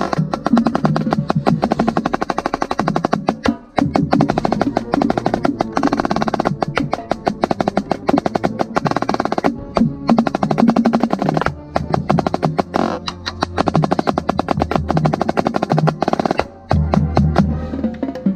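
Marching snare drum played close up in rapid, dense strokes and rolls, with other drums of the drumline playing along. The playing breaks off briefly about four seconds in and again near the end.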